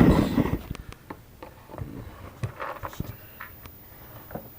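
Plastic Lego pieces handled and worked by hand: a clatter of small plastic parts at the start that dies away within about half a second, then scattered light clicks and taps.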